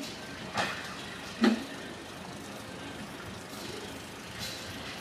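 Work noise from event tents being dismantled: two sharp knocks, one about half a second in and a louder one about a second later, over the steady drone of a generator.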